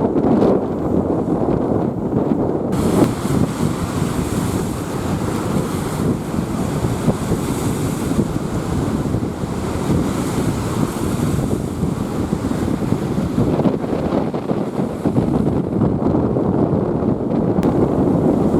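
Strong gale buffeting the microphone with a heavy rumble, over wind-driven lake waves surging and breaking on the shore. From about three seconds in to about twelve, a brighter hiss of gusting wind and water rises over it.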